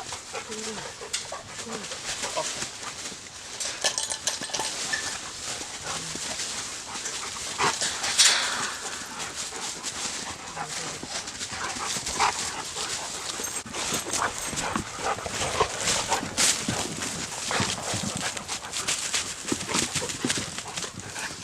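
Dogs moving about and making small noises, amid many short sharp clicks and rustles, with one louder burst about eight seconds in.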